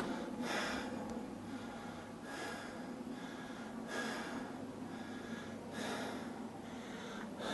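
A man breathing heavily close to the microphone, one breath about every one and a half to two seconds.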